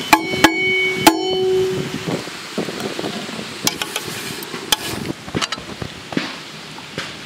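A few ringing metal clanks in the first second, a steel plate knocking against the rim of a large metal pot as grated coconut is tipped into hot water. A metal ladle then stirs the coconut through the water, with scattered sharp knocks against the pot.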